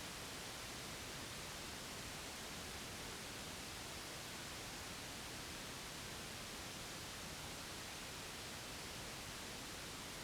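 Steady, even hiss of white noise that does not change.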